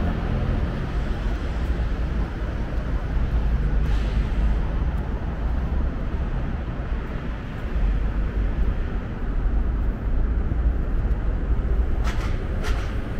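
City street traffic: a steady rumble of passing vehicles. Near the end come two short, sharp clicks.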